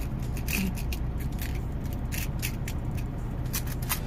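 Small metal enamel charms clicking and clinking against each other and the plastic as they are picked through and set into a compartment organizer box. Irregular light clicks over a steady low rumble.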